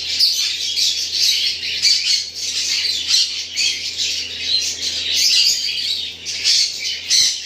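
Many caged parrots squawking and chattering at once, a dense continuous din of overlapping shrill calls.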